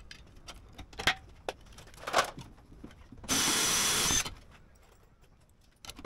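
A power drill running briefly for about a second, with a few sharp knocks and clicks of tool handling before it.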